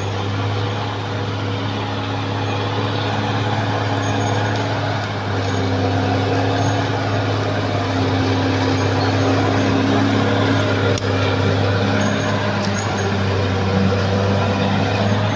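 Diesel engine of a Caterpillar D6R XL bulldozer running steadily while the machine works.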